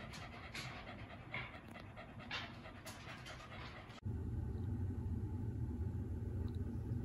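Shiba Inu panting in quick, even breaths, about two a second. About four seconds in, this cuts off abruptly and gives way to a steady low rumble.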